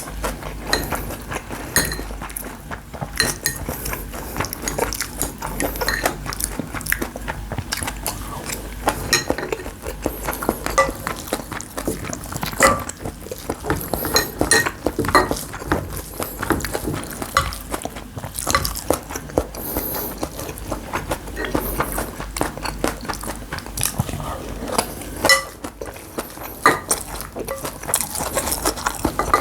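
Cutlery clinking and knocking against a bowl of bibimbap, many small irregular clicks throughout.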